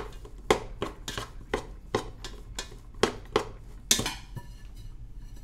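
Wooden spoon stirring cooked rice in a pot, knocking and scraping against the pot's side about twice a second, until about four seconds in.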